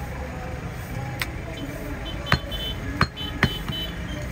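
Heavy butcher's cleaver knocking against a wooden chopping block while cutting goat meat: four sharp knocks, irregularly spaced, from about a second in.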